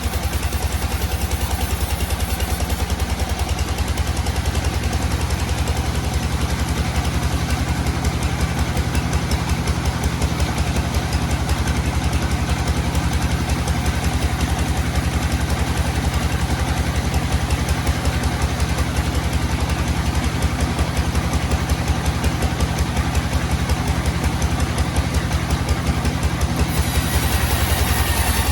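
Sawmill engine running steadily with a rapid low pulsing; its tone shifts slightly about three seconds in and again near the end.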